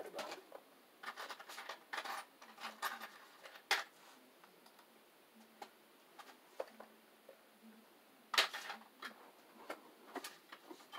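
Scattered light clicks, taps and scratches of small hardware and hand tools being handled while working at an electrical panel. The clicks come in a cluster over the first few seconds, with the loudest one about eight seconds in.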